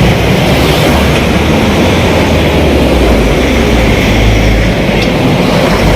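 Helicopter running close by: a loud, steady engine and rotor noise with a low drone.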